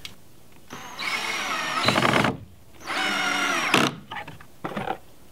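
Cordless DeWalt drill driving a 1¼-inch coarse-thread pocket-hole screw into wood, running in two steady whining spells of about a second and a half and a second. A few light knocks follow near the end.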